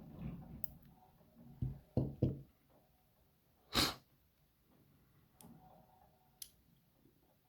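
Quiet handling of small lock parts: a few soft knocks around two seconds in and scattered faint clicks, with a short hissing breath about four seconds in.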